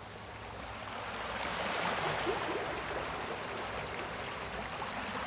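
Sea waves washing in a steady rush of surf, swelling over the first couple of seconds and then holding.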